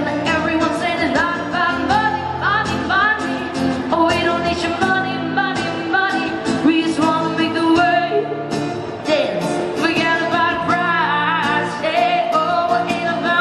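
A woman singing a pop song live into a microphone, with acoustic guitar accompaniment, heard through the PA.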